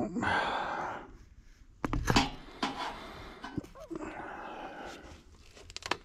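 A man breathing and sniffing with his head inside an air handler cabinet, checking for an odour. There is a knock about two seconds in, then rustling as he moves about in the cabinet.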